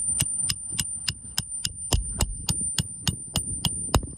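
Hammer driving a roofing nail into a replacement asphalt shingle: a quick, even run of sharp metal-on-metal taps, about three to four a second, each with a high ring.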